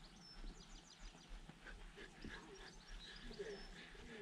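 Faint birdsong: small birds chirping in quick runs of short high notes over quiet outdoor air.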